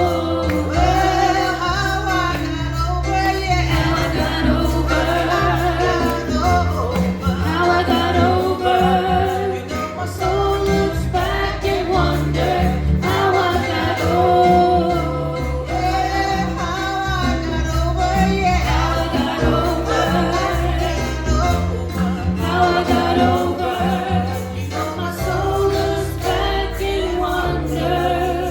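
Gospel-style singing over held bass notes that change every second or two.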